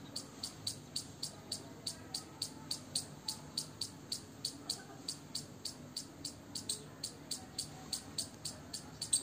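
Indian palm squirrel calling: a long, evenly paced run of short, sharp, high chirps, about four a second.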